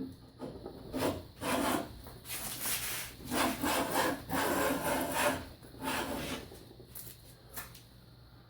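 Rabbet plane cutting along a dry oak edge in a series of short rasping strokes, about six passes, each taking off a shaving of roughly a thirty-second of an inch. The strokes die away in the last couple of seconds.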